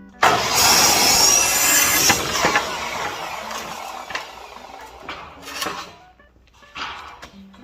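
A power tool working wood during carpentry. A harsh, loud noise starts suddenly just after the beginning, is loudest for about two seconds and then fades, with a few shorter bursts near the end.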